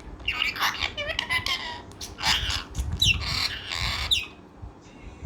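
Pet parrot squawking repeatedly in harsh, noisy calls, with two sharp falling screeches near the end of the run, then it goes quiet for the last second.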